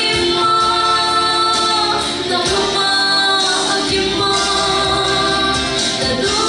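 A woman singing a worship song into a microphone over instrumental accompaniment, holding long sustained notes.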